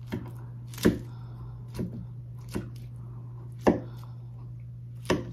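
Metal fork stabbing and tossing a large bowl of crisp romaine salad: about six short, sharp crisp clicks spaced roughly a second apart, over a steady low hum.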